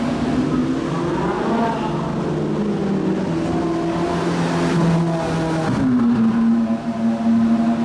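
Ferrari 458 Italia's V8 engine running as the car drives through a tunnel, with the tunnel's echo. The engine note shifts in pitch, then jumps up sharply about six seconds in as the engine revs up.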